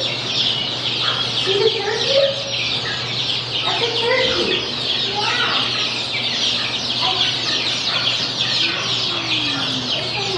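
A crowd of baby chicks peeping in a dense, continuous chorus, with a few lower calls from other fowl scattered through it, one a slow falling call near the end.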